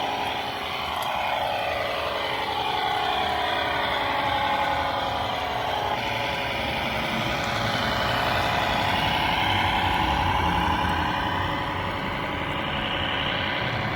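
Electronic engine sound modules of radio-controlled model trucks or tractors running, with several engine tones overlapping and their pitch falling and rising slowly as the models rev up and slow down.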